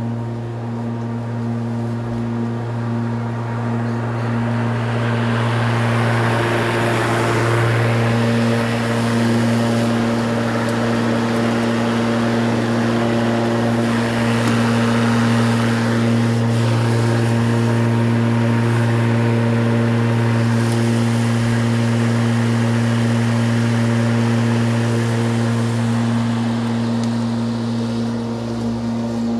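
Spear & Jackson 40V cordless rotary lawnmower running with a steady electric motor hum while its blade cuts grass. It grows louder and fuller a few seconds in as it passes close by, and eases off again near the end.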